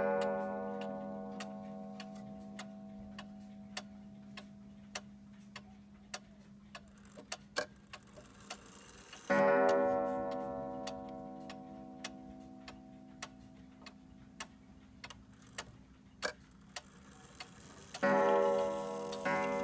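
Vintage pendulum wall clock ticking about one and a half times a second while its strike sounds on a gong three times, about nine seconds apart, each blow ringing out and slowly fading. The strike is set off by hand as the hands are moved round the dial.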